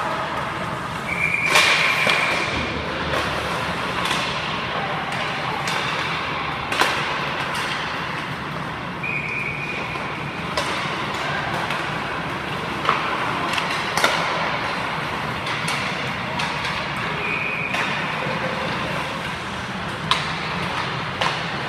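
Hockey sticks cracking against pucks and pucks smacking the boards every few seconds, the loudest cracks about a second and a half in and near the middle, over a steady hiss of skates on ice in an echoing indoor rink.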